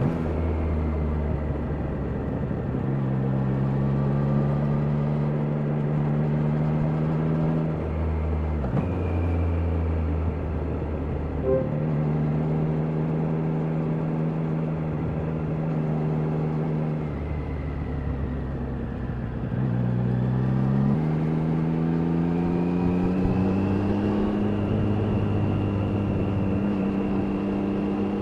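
Triumph Daytona 660's inline three-cylinder engine running under way. It holds steady engine notes that shift abruptly several times with throttle or gear changes, then climbs steadily in pitch in the last several seconds as the bike accelerates.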